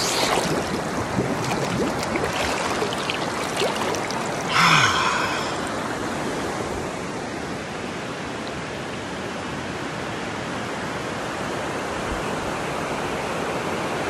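Fast-flowing, swollen river rushing steadily, with small splashes close by in the first few seconds and one short, louder burst about five seconds in.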